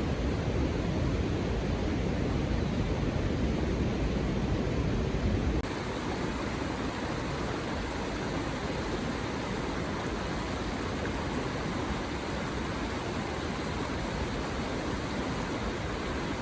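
Steady rushing outdoor noise with no distinct events. About five and a half seconds in it cuts abruptly to a quieter, less deep rush.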